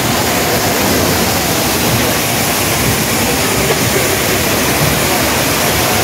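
The Rain Vortex, a tall indoor waterfall, pouring down in a steady, loud rush of falling water.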